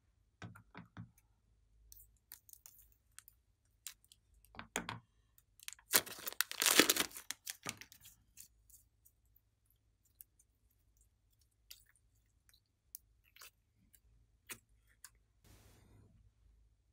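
Plastic piping bag filled with slime crinkling as it is handled and squeezed, with scattered small sticky clicks and crackles. The loudest, densest crinkling comes about six seconds in, and there is a softer rustle near the end.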